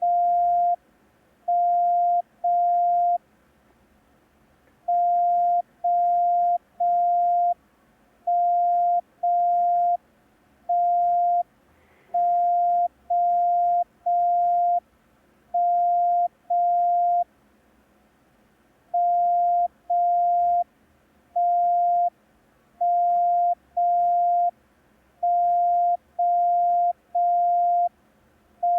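Morse code practice tone sent slowly: a single steady beep keyed on and off in long dashes only, grouped in ones, twos and threes, spelling the letters T, M and O.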